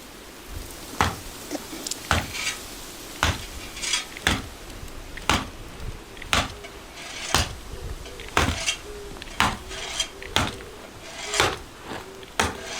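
Sharp clinking knocks of hard objects striking, evenly about once a second, with lighter clicks and clinks between them.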